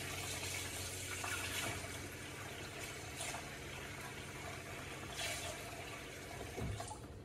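Kitchen faucet running into a plastic bowl of blackberries in a stainless steel sink. A few louder splashes come as hands stir the berries in the water.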